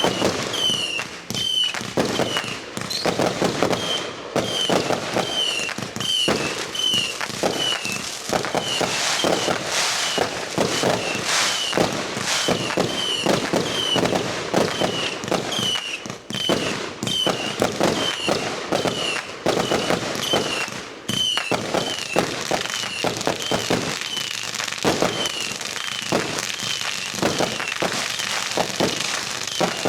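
Fireworks going off in a dense, continuous barrage of sharp pops and crackles. A short high chirp repeats about twice a second throughout.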